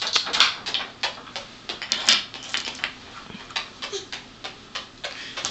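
A young girl making kissing smacks with her lips in quick succession, about three or four a second, counting off kisses.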